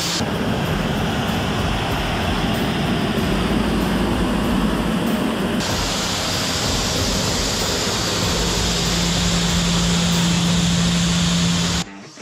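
Pressure washer spraying water onto a car's engine bay: a steady, loud hiss of spray, with a steady low hum joining in for the last few seconds. It cuts off suddenly just before the end.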